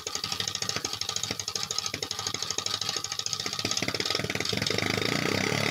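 Small 3D-printed single-cylinder compressed-air engine running, with a fast, somewhat uneven train of clicking exhaust puffs. The beats become smoother and slightly louder in the last second or two.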